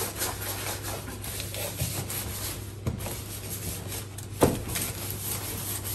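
A wipe rubbing and scrubbing over the surface of a cardboard box, cleaning it, with a few light knocks as the box is handled; the loudest is a knock about four and a half seconds in.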